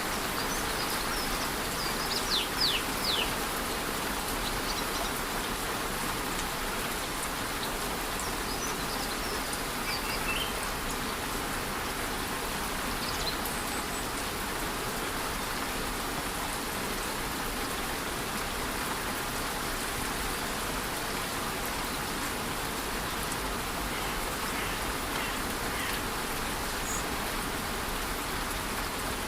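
Steady rush of a waterfall with light rain falling, a constant even hiss. Birds chirp over it: a quick run of short falling chirps about two to three seconds in, and a few faint calls later on.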